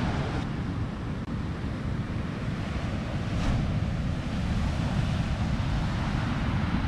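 Ocean surf breaking and washing up a sandy beach, a steady rushing of waves, with wind buffeting the microphone as a low rumble underneath.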